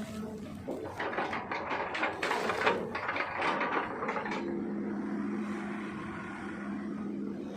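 Hitachi ZX200-5G excavator at work, a rapid run of sharp cracks and knocks as its bucket chops oil palm trunks. About halfway through, the knocks give way to a steady droning tone from the diesel engine and hydraulics.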